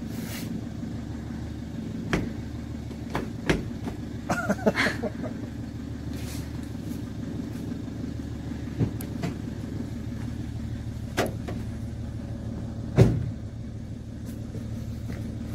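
Fiat van's engine idling with a steady low hum, with scattered light knocks and handling noises and one louder thump about 13 seconds in.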